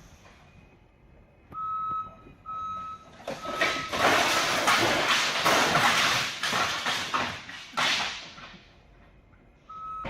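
A vehicle's reversing alarm beeps three times, about one beep a second, then a loud crash with many cracks and scraping lasts several seconds before dying away; one more beep comes near the end.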